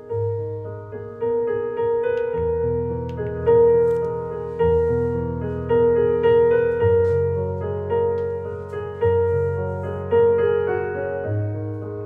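Background piano music: single notes struck about once a second, each fading away, over held low bass notes.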